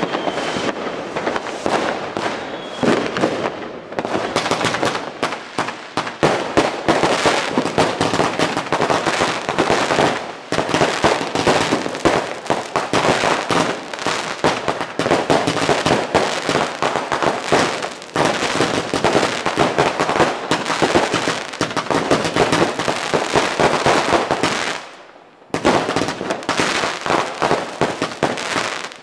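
Consumer fireworks and firecrackers going off in a dense, continuous barrage of rapid, overlapping bangs and crackles, with a brief lull about twenty-five seconds in.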